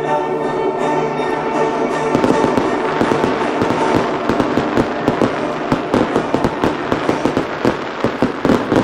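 Aerial fireworks bursting in a dense barrage: rapid sharp bangs and crackling, several a second, with orchestral music fading out about two seconds in.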